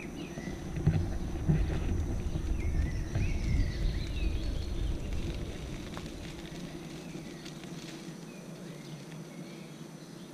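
Low rumble of a Kingsong KS14 electric unicycle rolling over a park path, mixed with wind on the microphone, easing off in the second half. A few birds chirp in the first seconds.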